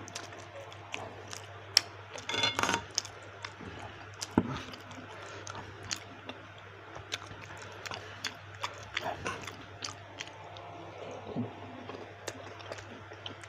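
Close-up mouth sounds of chewing and biting baso aci, tapioca meatballs with cartilage inside, with irregular wet clicks and crunches. The crunching is thickest about two and a half seconds in. A steady low hum runs underneath.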